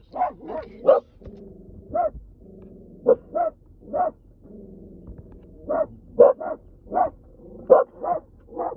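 A dog barking over and over in short, sharp barks, irregularly spaced, several of them in quick pairs.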